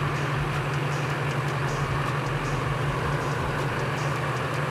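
Freshly rebuilt Duramax 6.6-litre V8 turbo-diesel in a GMC pickup idling steadily with a constant low hum as the truck creeps along under its own power.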